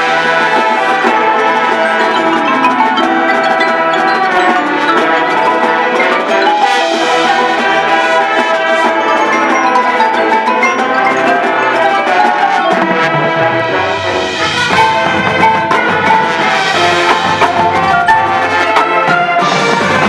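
High school marching band playing its field show, with the front ensemble's mallet percussion (marimba and glockenspiel) prominent over the brass.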